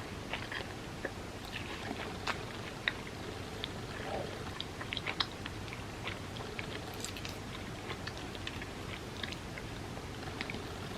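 A person chewing food close to the microphone: soft, wet mouth clicks and smacks, most frequent in the first half.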